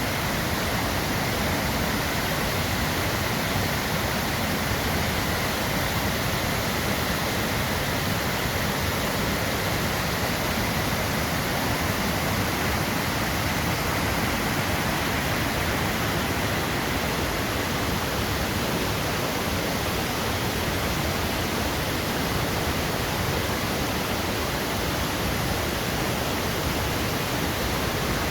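Waterfall: water falling and rushing in a steady, unbroken wash of sound.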